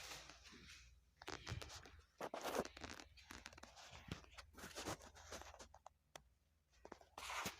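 Irregular scraping, rustling and clicking from hands working on plumbing fittings.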